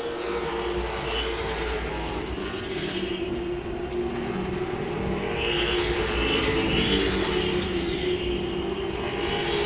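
Late model stock cars' V8 engines running at racing speed, a steady, even engine drone with no break.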